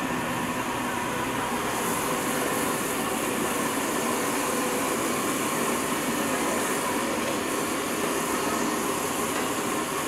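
Steady sizzle of meat frying in oil on a large flat griddle, the hiss growing a little about two seconds in, over a constant background of street traffic.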